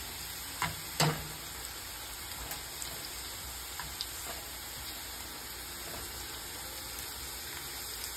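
Batter-coated okra deep-frying in hot oil in a stainless steel pan: a steady sizzle with scattered small pops. Two sharp knocks come near the start, the louder about a second in.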